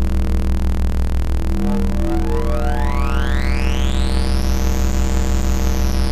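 Synthesizer music: a sustained low drone whose tone opens up in a slow upward filter sweep from about two seconds in, cresting and starting to close again near the end.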